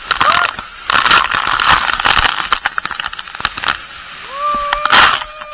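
Waterfall water pounding down in heavy, crackling splashes, with a person whooping once about four seconds in.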